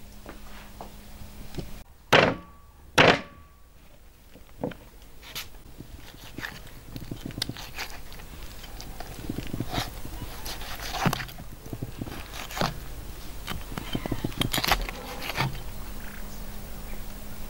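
Two loud thunks about two and three seconds in, followed by scattered lighter knocks and clicks.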